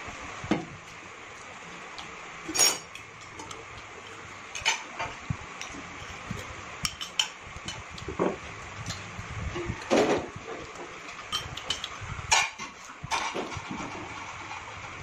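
Metal forks and spoons clinking and scraping against ceramic plates while eating, in irregular short clinks, a few of them sharper and ringing.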